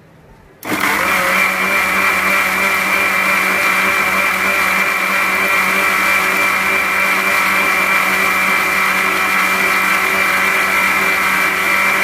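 Electric mixer grinder with a stainless steel jar, switched on under a second in, its motor running with a steady whine while grinding a wet tomato and red chilli chutney.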